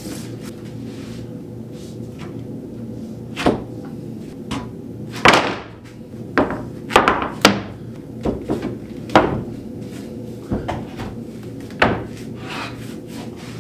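Thick white oak boards knocking and thudding as they are set down and shifted on a cabinet top: about nine separate knocks from about three seconds in until near the end, over a steady low hum.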